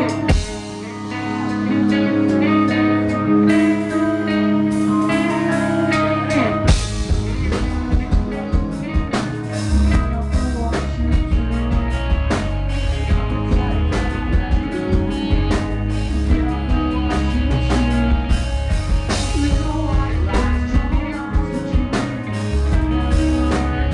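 Live rock band playing a song: a ringing guitar opening, then the drum kit and the rest of the band come in about seven seconds in, with heavy bass, and the singer sings over it.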